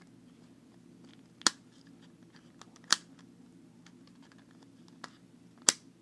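Plastic rainbow puzzle ball being twisted and rolled in the hands to mix it up, its coloured balls clicking into place: three loud sharp clicks with fainter ticks between.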